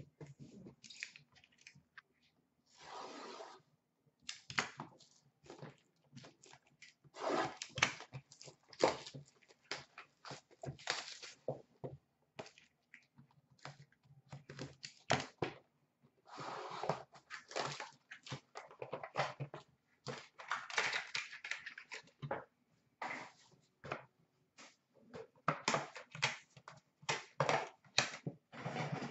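Cardboard trading card box being opened and its foil packs handled and torn, giving irregular bursts of tearing, crinkling and rustling with small clicks.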